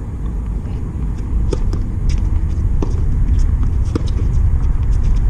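Outdoor wind buffeting the microphone: a loud, uneven low rumble that swells about a second in, with a few faint ticks over it.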